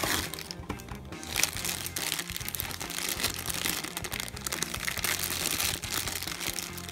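Black plastic blind bag crinkling as hands squeeze and pull it open, many short crackles, over steady background music.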